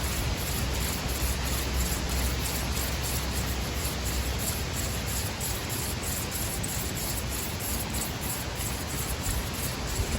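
Steady rushing noise of strong wind on the microphone, with the rubbing of palms spinning a long horseweed hand-drill spindle into a tulip poplar fireboard. The low wind rumble eases about halfway through.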